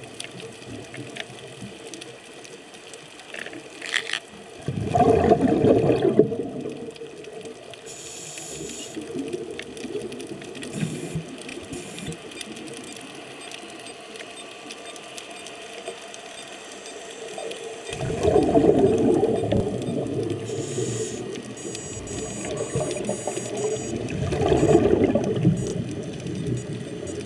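Underwater recording of scuba divers' exhaled regulator bubbles: three bubbling, rushing bursts of a few seconds each, about five seconds in, around eighteen seconds and around twenty-four seconds, over a steady underwater hiss with faint crackling.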